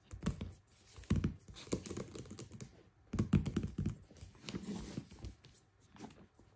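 Hands handling a small cardboard product box on a table: an irregular run of taps, scrapes and rustles as it is pressed and slid, then tipped up and picked up near the end.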